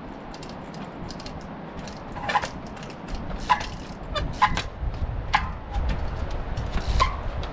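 Trials bike hopping across rock boulders: about five sharp knocks and clacks as its tyres and rims land on the stone, over a low rumble of wind on the microphone that grows stronger about halfway through.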